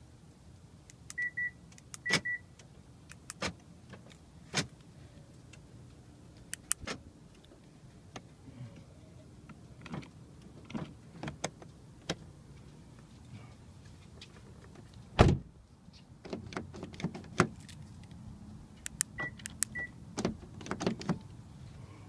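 2013 Hyundai Sonata power door locks being cycled: repeated sharp clicks and clunks from the lock switch, handle and lock actuators on a car whose power locks keep failing. Short high beeps sound in pairs near the start and again near the end, and there is one loud thump about two-thirds through.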